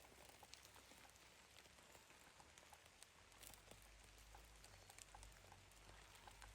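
Near silence: a faint hiss with scattered, light ticks and clicks.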